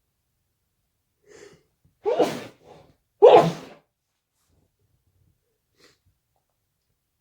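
A person sneezing twice, about a second apart, after a faint quick in-breath; the second sneeze is the louder. The sneezer has a stuffy nose.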